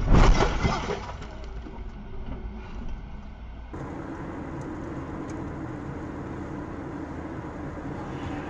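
A clatter of sharp impacts in the first half-second as collision debris strikes a car's windshield. Then steady road and engine noise of a car driving at highway speed, heard from inside the car.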